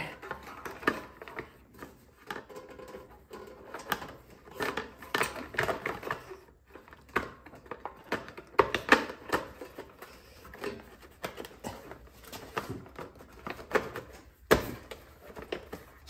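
Irregular clicks, taps and light knocks of hands handling and fitting snowblower engine parts during reassembly, with one sharper knock near the end.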